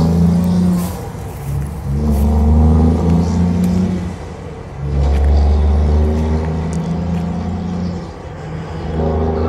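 Heavy truck's diesel engine accelerating away under load, pulling an empty lowbed trailer. The engine note pulls strongly, then dips briefly about every three to four seconds as it changes up through the gears.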